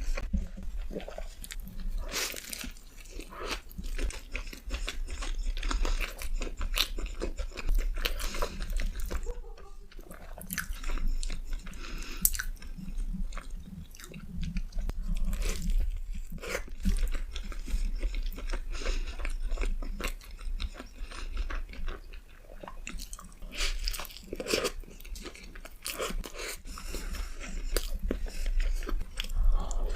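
Close-miked eating: repeated crunchy bites and chewing of crisp food, coming irregularly throughout, over a steady low hum.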